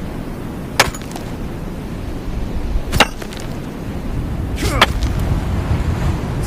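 KA-BAR Combat Kukri machete being swung and chopping: three sharp strikes about two seconds apart, the last with a short swish into the hit, over a low steady rumble.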